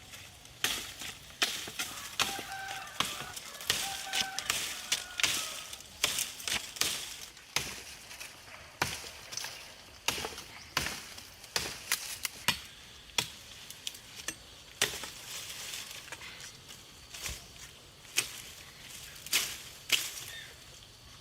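A hand tool striking hard material over and over, about once a second in an uneven working rhythm, each stroke a sharp chopping hit.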